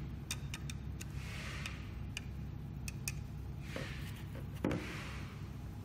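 Steady low hum of a powered-up projector's cooling fans and light engine, with a few light clicks.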